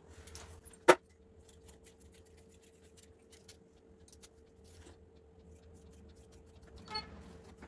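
Tailor's scissors cutting fabric: a run of small snipping ticks, with a sharp loud click about a second in and a ringing metal clink near the end.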